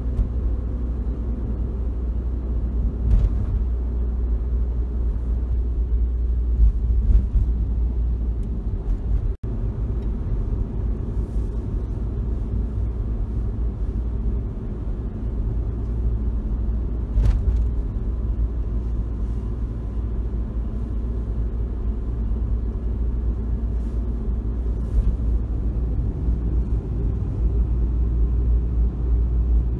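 Engine and road noise inside a van's cabin as it climbs a looping mountain road, a steady low rumble with a few faint knocks. The sound briefly cuts out about nine seconds in.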